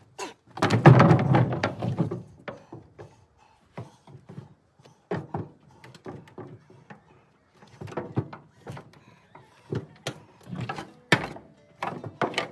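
A series of heavy thuds and knocks: a loud cluster from about half a second to two seconds in, then scattered single knocks.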